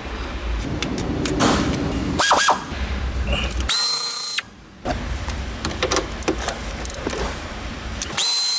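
Tools working on a car seat's mounting bolts: ratcheting and clicking with bursts of tool noise over a low steady hum. Two short, high steady tones cut in about four seconds in and near the end.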